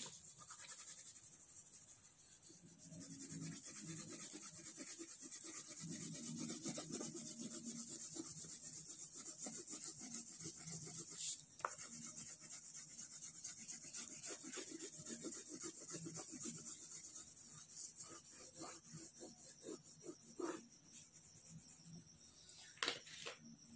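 Crayon rubbed back and forth on paper in quick, steady scraping strokes, colouring in, with one sharper tap about eleven seconds in.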